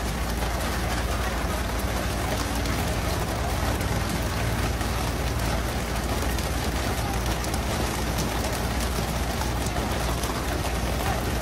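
Steady hiss of water spraying and splashing around a fishing boat, over a low, steady engine rumble.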